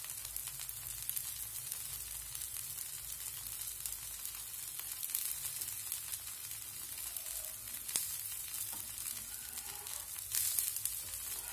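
Wheat dosa frying in oil on a hot dosa griddle: a steady, soft sizzle with fine crackles. About ten seconds in, a steel spatula scrapes under the dosa's edge to lift it off the griddle.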